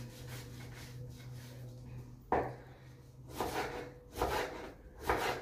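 Kitchen knife slicing an onion on a wooden cutting board: four separate knocks of the blade through the onion onto the board, about a second apart, starting a little past halfway.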